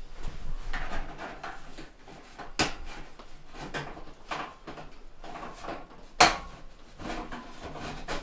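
Sheet-metal chimney cap with a mesh screen being twisted and pushed down onto the top of a stovepipe: metal scraping and rattling, with sharp clanks about two and a half and six seconds in, the second the loudest.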